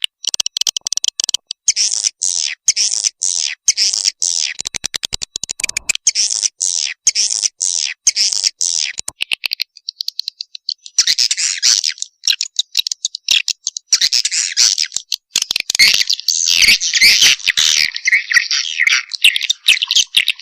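Swiftlet calls in a lure-call recording: rapid, high-pitched chittering twitters in quick series. There is a run of very fast clicks about five seconds in and denser chattering from about eleven seconds on. This is the kind of call played at swiftlet houses to draw edible-nest swiftlets in to roost and breed.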